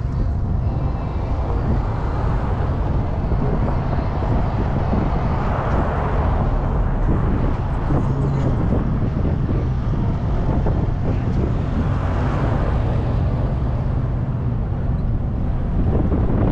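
Steady road and wind noise of a car driving, with the noise swelling twice, about six and twelve seconds in.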